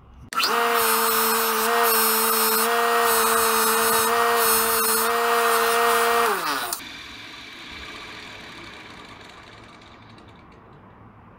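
Bench grinder fitted as a buffer switches on and runs steadily with a loud whir and hum while the steel blade of a reed knife is buffed against the wheel. About six seconds in the motor is switched off: its pitch drops, and the whir fades as the wheel spins down.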